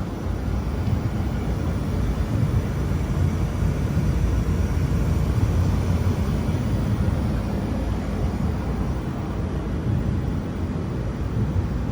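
Steady low rumble and hum of a 2 kW fiber laser welding setup running, with a faint hiss above it. The level swells slightly in the middle.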